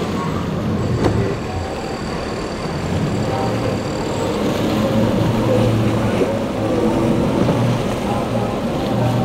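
Outboard engines of a large center-console boat running hard at speed, with the rush of water and spray off the hull as it crosses rough inlet chop.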